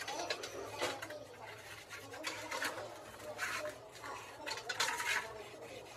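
Several short scrubbing and rubbing strokes as a Holset HX40W turbocharger housing is cleaned by hand and brush in a wet metal basin, with light knocks of the metal part against the pan.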